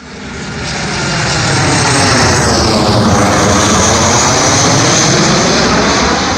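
A fixed-wing aircraft's engines passing close by, loud. The noise swells up over the first two seconds, then holds steady and strong.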